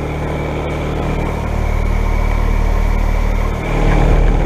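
2017 Carrier Comfort 3-ton heat pump outdoor unit running in heat mode just after starting up: a steady machine hum from its LG scroll compressor and fan that grows louder. A heavier low rumble sets in about three and a half seconds in.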